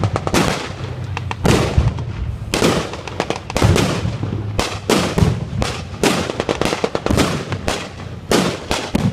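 Blank gunfire and pyrotechnic blasts at a WWII battle reenactment: a dense, irregular string of loud, sharp bangs and cracks, several a second at times, over a continuous low rumble.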